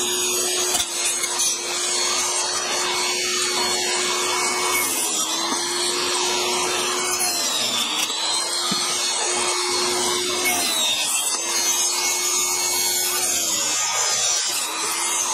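Jobsite table saw running with a steady whine, its pitch sagging briefly four times, a few seconds apart, as the blade bites into small pieces of wood and then recovering between cuts.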